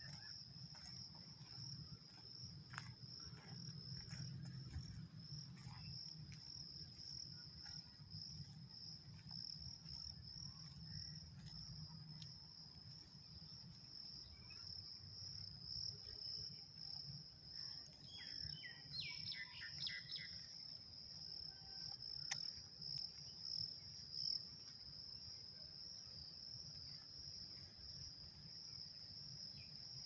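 Insects trilling steadily at one high pitch, with a short burst of bird chirps about two-thirds of the way through.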